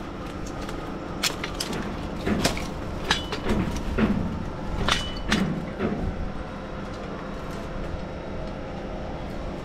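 Stick-boom crane's engine running steadily while it holds a load, with scattered knocks, clicks and a few short creaks over the first six seconds.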